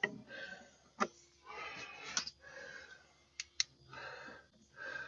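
A few sharp clicks amid soft handling and rustling, as hands probe and press a release clip on a car's door-mirror mount.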